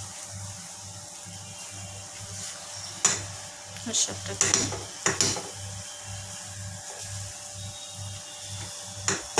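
A red silicone spatula stirs and scrapes a thick cooked semolina (rava) mixture around a nonstick pan over a gas flame, with a faint steady sizzle. A few sharper scrapes against the pan come in the middle and one more near the end.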